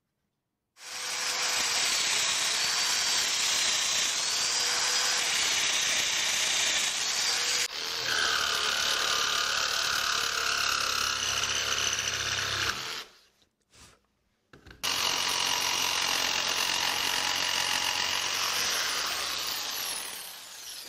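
Jigsaw cutting a cherry board, its motor running steadily with a wavering whine as the blade works through the wood. The cutting stops for about two seconds near the middle, then starts again and fades out near the end.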